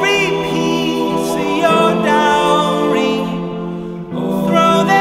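Background music: a song with singing over sustained chords, with a brief drop in the music a little before the end.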